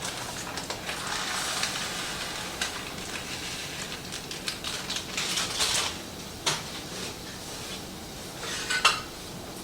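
Rice going into a pot of boiling water: a steady bubbling hiss with scattered clinks and taps of pot and utensil, the hiss easing after about six seconds.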